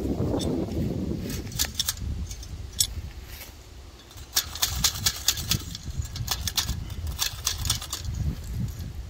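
Barbed wire and steel fencing pliers clinking and clicking as the wire ends are wrapped and twisted into a splice, in irregular clusters of sharp metallic ticks, thickest in the second half. A low rustle of gloves and handling runs through the first second or so.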